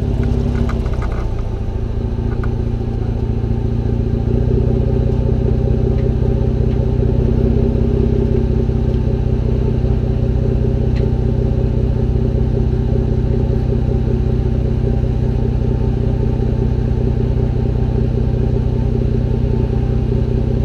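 Toyota FJ Cruiser's 4.0-litre V6 idling through a custom aftermarket exhaust. It settles back down in the first couple of seconds after a rev, then holds a steady, even idle.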